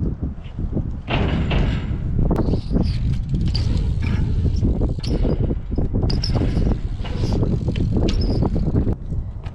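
Strong gusty wind on the microphone, with a BMX bike rolling and clattering on skate park ramps, its parts rattling and clicking.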